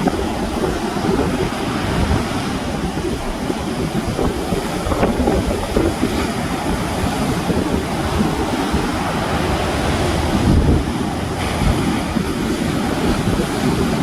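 Sea surf washing on the shore, with wind buffeting the microphone as a gusty low rumble.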